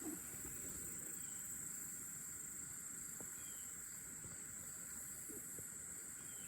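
Steady high-pitched insect drone, like crickets, with low wind rumble on the microphone.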